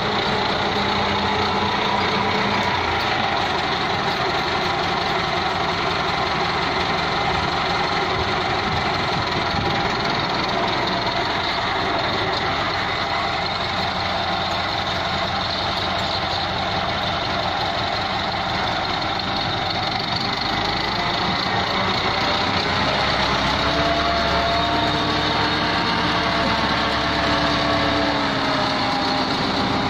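IMT 577 tractor's diesel engine running steadily under load while it works a rear scraper blade through cattle dung. Near the end the engine pitch rises and falls as the tractor manoeuvres.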